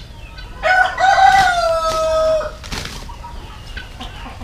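A rooster crows once: a single long call of nearly two seconds that starts just under a second in and sinks slightly in pitch toward its end.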